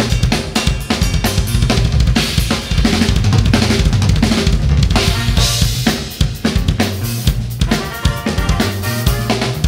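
A DS Rebel Series drum kit with UFIP cymbals played live in a busy funk groove: quick kick-drum, snare and cymbal strokes with no break.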